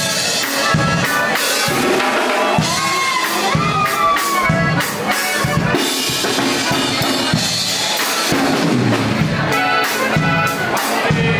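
Live norteño band playing an instrumental passage: button accordion carrying the melody over a string instrument and a drum kit keeping a steady beat.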